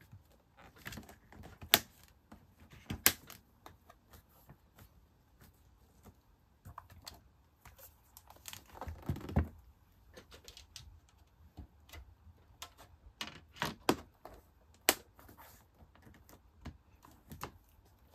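Clear hard plastic case being fitted onto a MacBook Air: scattered sharp clicks and taps as the shell snaps onto the aluminium body, with a brief scraping rustle about nine seconds in as the laptop is handled and turned over.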